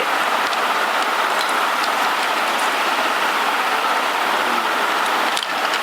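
Steady hissing rush of noise, even throughout, with a few faint ticks.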